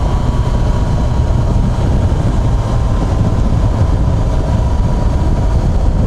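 Yamaha FZ6R's inline-four engine running steadily while riding, heard as a continuous low rumble.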